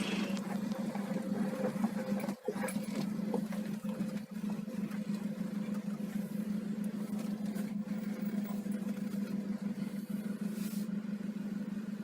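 Off-road vehicle driving at a steady pace, its engine making a constant drone, with two brief drops about two and four seconds in.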